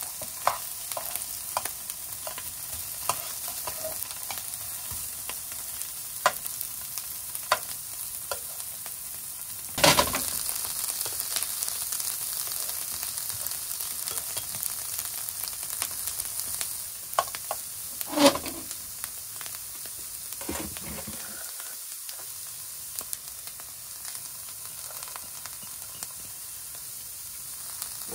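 Oil sizzling under pieces of boiled bamboo shoot in a nonstick frying pan, with frequent clicks and scrapes of metal tongs turning them against the pan. There is a louder knock about ten seconds in, after which the sizzle is a little louder, and another louder knock a little past the middle.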